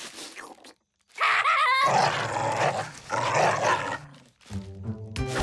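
Cartoon vocal sound effects: a short wavering cry about a second in, then a loud, noisy, animal-like vocalization lasting about two seconds. Music with drum hits starts near the end.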